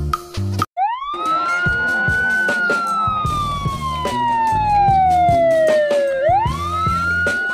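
Police car siren wailing: a quick rise in pitch about a second in, a slow fall over about five seconds, then another quick rise near the end, with background music underneath.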